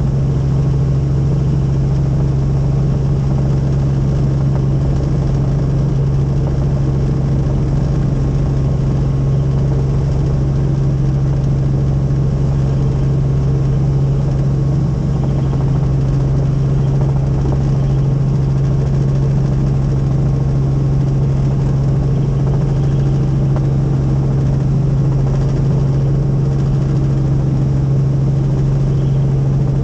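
Helicopter running, heard from inside the cabin: a loud, unbroken drone with one strong low hum and a steady rumble beneath it.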